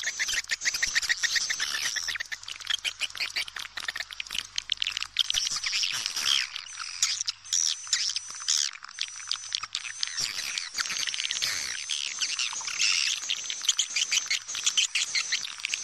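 Swiftlet calling recording, the lure sound played in swiftlet houses: a dense, continuous chatter of rapid high-pitched chirps and twitters from many birds, with a thin high whistle running over it.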